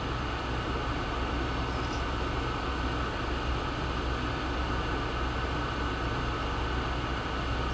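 Steady background hum and hiss of an air-conditioning or ventilation unit running, with a faint high steady tone over it; no distinct clicks or knocks from the handle stand out.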